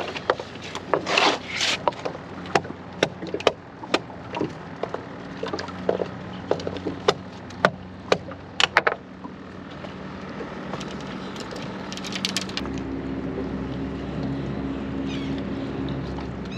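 Sharp, irregular knocks of a wooden block striking sea urchins on a fibreglass boat deck, cracking their shells open for bait. The knocking stops about nine seconds in, and a steady boat-engine drone comes in about three seconds later.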